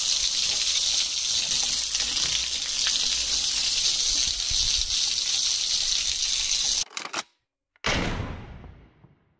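Water rushing hard from a newly fitted tap, a loud steady hiss that cuts off abruptly about seven seconds in. A shorter burst of hiss follows about a second later and fades away.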